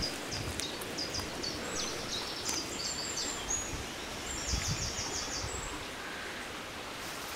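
A small songbird singing high chirping notes, with a fast trill of repeated notes about four and a half seconds in, over the rustle of leaf litter and undergrowth being walked through.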